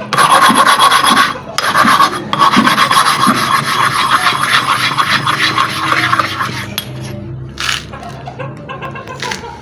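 A sharpening stone being ground back and forth against rock to flatten its face: a continuous gritty stone-on-stone rasping, broken twice briefly in the first few seconds. The rasping stops about seven seconds in, leaving only faint sounds and one short scrape.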